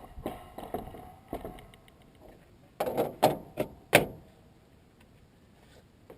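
Mechanical clicks and clacks from handling a .22 rifle and its subsonic ammunition: a run of light clicks and rattles, then five sharp clacks in quick succession about three seconds in.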